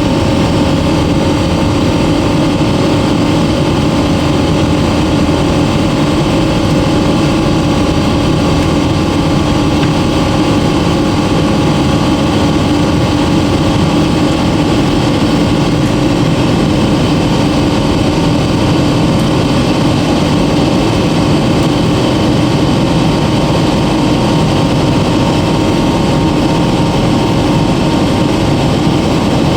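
Jet airliner cabin noise in flight: a steady rush of engine and airflow noise with a few constant hums beneath it.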